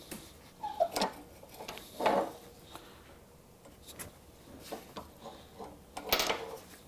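Scattered light metal clinks and knocks as a hot cast-iron plane part and its clamps are handled and reset on a steel block. The louder knocks come about a second in, about two seconds in, and as a short cluster near the end.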